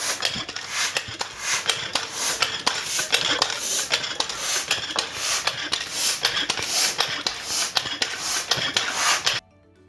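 A dirty car cabin air filter being cleaned with a bicycle hand pump: repeated hissing puffs of air with many sharp clicks and rattles. The noise starts abruptly and cuts off abruptly near the end.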